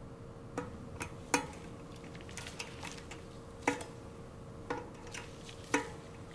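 Sharp metallic clinks as a T25 Torx key engages the bolts of a 6-bolt steel disc brake rotor. There are about eight clinks at irregular intervals, several followed by a brief ring from the rotor, the loudest about a second and a half in. A faint steady hum runs underneath.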